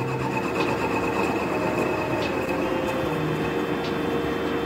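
Metal lathe running, its chuck spinning a steel bar while the lathe tool cuts it: a steady machine hum with a few faint ticks.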